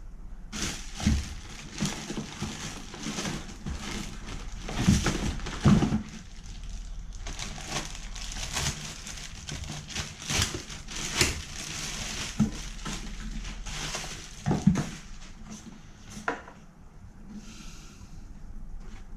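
Packaging being handled as an exhaust fan is unpacked from its box: rustling and crinkling, with several sharp knocks, dying down near the end.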